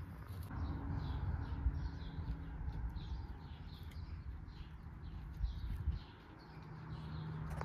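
A small bird chirping over and over, about three short chirps a second, with soft rustling and knocks from hands working soil in a plastic crate.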